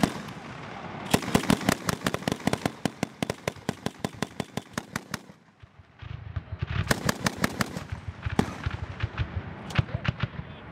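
Distant rapid gunfire, with shots following several a second in automatic bursts. There is a short lull about five and a half seconds in, then the firing starts again.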